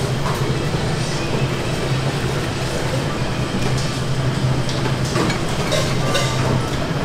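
Burger buns toasting in hot oil on a flat-top griddle, sizzling steadily over a constant low hum. A metal spatula gives a few short scrapes and taps on the griddle about five to six seconds in.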